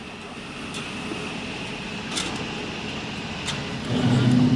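Automatic orbital welding machine running a flux-cored MIG weld as it climbs the pipe, giving a steady hiss with a few faint crackles. A louder low droning hum joins about four seconds in.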